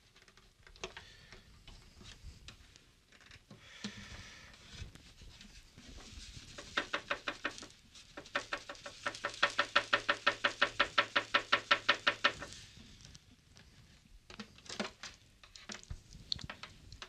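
Handling knocks and clicks from a 12-string acoustic guitar as a sound hole pickup is pressed into place, with a quick even run of clicks, about eight a second, for several seconds in the middle.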